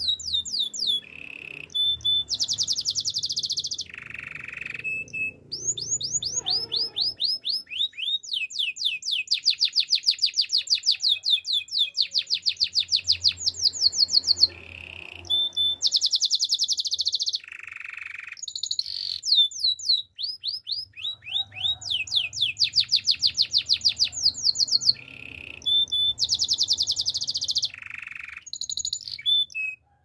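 Male canary singing a long, varied song: rapid trills of repeated sweeping notes alternating with buzzy rolls and short held whistles.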